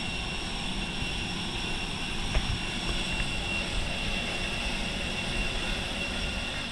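Steady jet airliner noise on an airport apron: a rumble with a high whine held at a fixed pitch. About two and a half seconds in there is one sharp knock.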